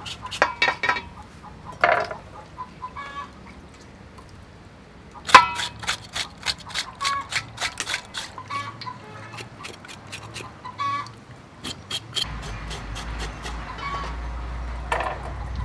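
A knife scraping the skin of a raw pork leg in a steel bowl of water, in runs of quick sharp strokes several a second, with water sloshing as the meat is washed by hand.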